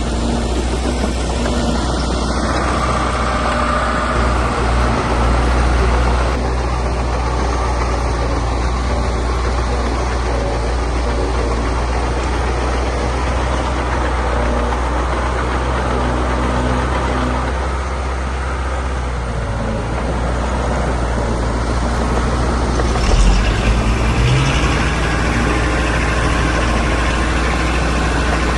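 Diesel engines of earthmoving machinery running steadily, with a brief rise in engine speed about 23 seconds in.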